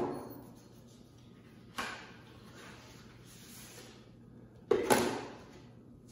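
Handling of a cardboard shipping box and its paper contents: a single tap about two seconds in and two quick knocks close together near five seconds, with faint paper rustling between.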